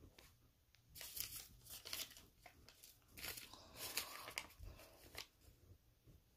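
Faint rustling and crinkling in several short spells.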